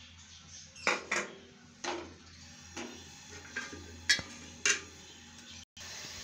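A metal utensil clattering against a steel cooking pot: about six sharp knocks over the first five seconds, the loudest a little past the middle, over a low steady hum.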